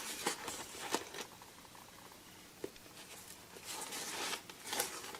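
Rustling and light clicks of packaging and a gun box being handled, in a series of short, irregular scrapes and taps.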